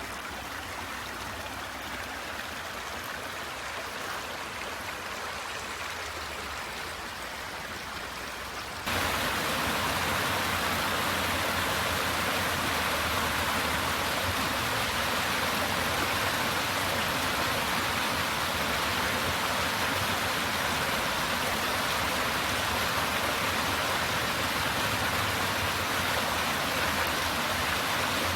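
Steady rushing of flowing river water, with no distinct notes or knocks. It jumps abruptly louder about nine seconds in and then stays steady.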